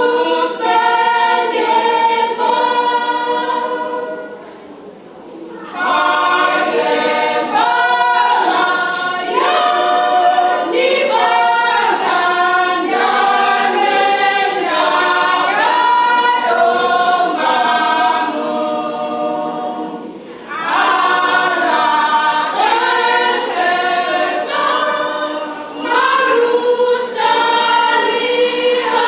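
Women's church choir singing a hymn in parts, without instruments, with brief breaths between phrases about five seconds in and about twenty seconds in.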